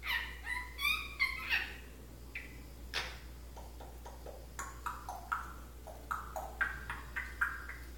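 African grey parrot making a run of short whistles and chirps, some sliding up or down in pitch. There is one sharp click about three seconds in, and the chirps come in a quicker string in the second half.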